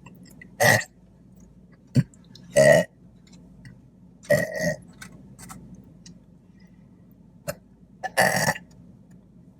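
Four short burps spaced a couple of seconds apart, with two sharp clicks between them.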